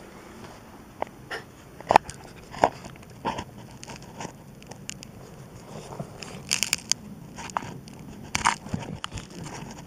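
Irregular crunches, cracks and scrapes of dry soil and thin roots in a freshly dug hole under a tree, a few sharp cracks standing out about two seconds in and again near the end.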